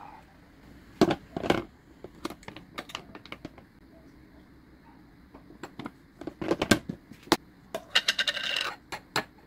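Kitchen clatter of a ceramic bowl and a metal spoon: two knocks about a second in, then a string of clinks, a loud cluster of clinks past the middle, and a short scrape near the end as thick red chili paste is scooped with the spoon.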